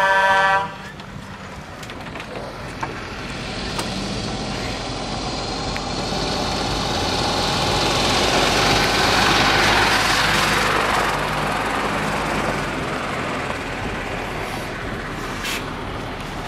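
A horn blast cuts off about half a second in. Then a MAN truck pulling a tanker trailer drives past close by: the diesel engine hums low and the rushing noise grows to a peak near the middle before fading away.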